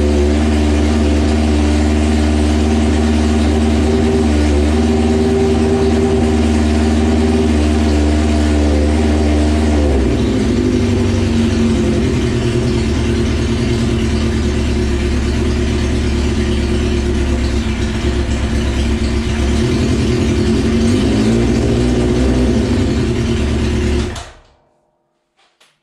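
Cold motorcycle engine in a modified garden pulling tractor running steadily after a choked start. About ten seconds in, its note drops and roughens as the alternator is switched on and loads the engine to charge the battery. The engine shuts off suddenly near the end.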